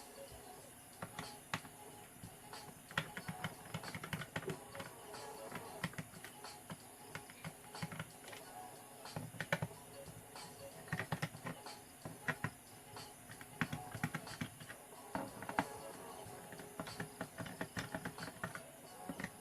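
Irregular small clicks and taps from a laptop's plastic case and parts being handled while it is taken apart, over quiet background music.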